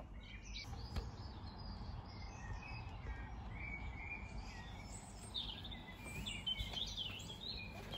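Outdoor background noise with small birds chirping on and off, in short high calls that come in clusters a couple of seconds in and again around the middle to late part.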